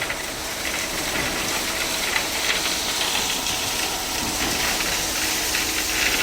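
Steady hiss with a low engine hum from running machinery.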